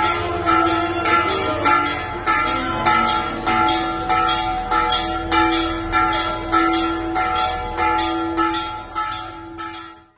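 Several church bells pealing in a fast, regular rhythm, about two strokes a second, each stroke leaving a ringing hum; the ringing cuts off suddenly near the end.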